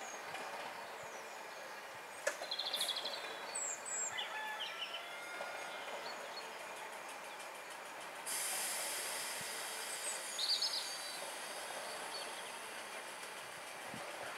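Class 205 'Thumper' diesel-electric multiple unit standing at the platform with its engine running, birds chirping over it. There is a sharp click about two seconds in, and a sudden hiss starts a little past halfway and carries on.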